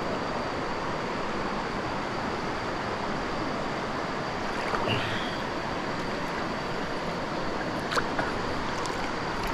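Steady wash of river water close to the surface, mixed with wind on the microphone, with a few small splashes near the end.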